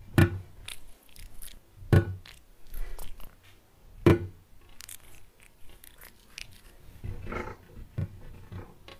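Three loud, sudden thumps about two seconds apart, each with a brief low rumble, with lighter taps and clicks in between.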